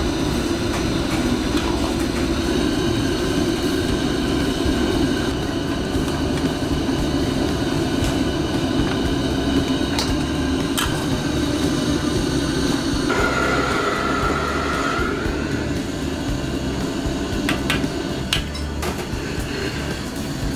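Steady roar of a restaurant wok burner's gas flame under a wok of crab deep-frying in bubbling oil. A few sharp metal clicks come in the second half.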